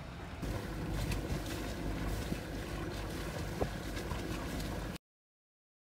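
Sailing yacht under way: wind on the microphone over a low steady rumble. It starts about half a second in and cuts off abruptly near the end.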